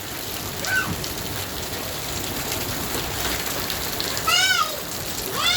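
Steady rain falling. Over it come two high-pitched calls: a short one with a falling pitch about a second in, and a louder one that rises then falls, past the four-second mark.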